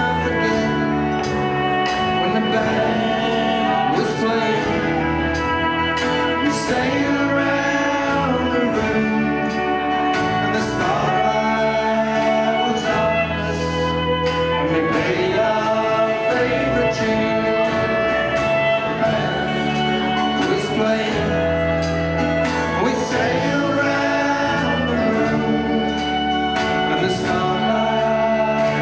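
Live folk band playing a waltz on fiddle, guitars, bass, mandolin and drums, with a voice singing over it.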